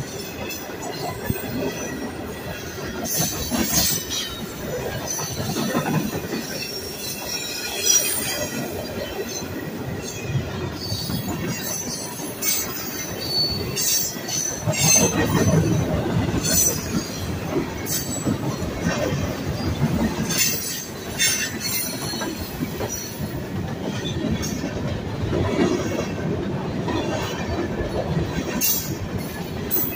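CSX freight train's hopper cars rolling past close by: a steady rumble of steel wheels on the rails, with brief high wheel squeals again and again.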